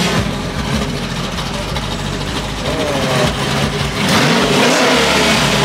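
Vehicle engine running and revving, getting louder about four seconds in, with voices.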